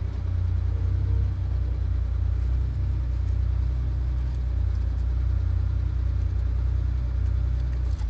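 A sports car driving, its engine a steady low rumble.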